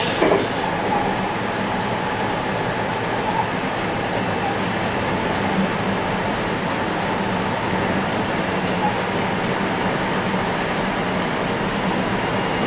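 JR electric train running steadily at speed, heard from just behind the front cab: a constant rumble of wheels on rail with a faint steady whine.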